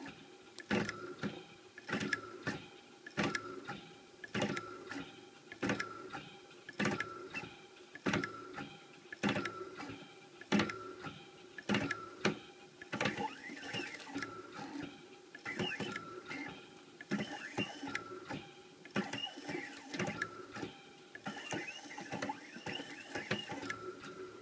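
X3 CNC mill working through an engraving program with its spindle off. The axis stepper motors whine in steady tones that slide up and down in pitch as the table moves, under a sharp click about once a second, while a diamond drag bit scratches into stainless steel.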